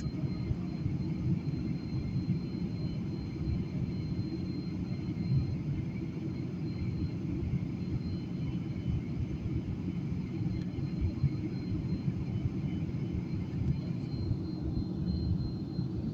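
Steady low rumble of an aircraft's engines and airflow heard inside the cabin as the plane descends to land, with a faint, thin high whine above it.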